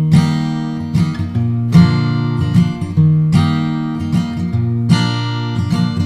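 Acoustic guitar strumming chords in a slow rhythm, each chord left to ring and fade before the next, as the instrumental intro of a song.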